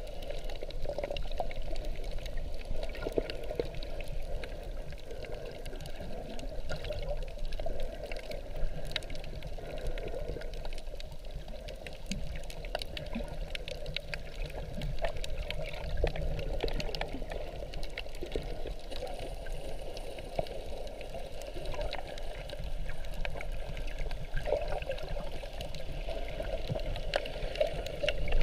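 Underwater sound picked up by a GoPro camera while snorkeling over a reef: a steady muffled rush of water with a scatter of small crackles and clicks.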